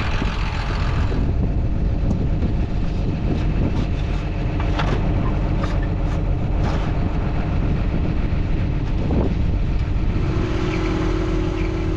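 Tractor engine idling steadily, with a few short, light clicks in the middle. A steady hum starts near the end.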